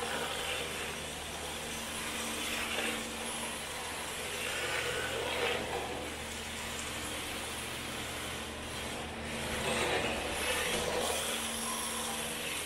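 MST rear-wheel-drive RC drift car circling, its electric motor running and its tyres sliding on concrete, the sound swelling and fading a few times as the throttle changes and the car swings past.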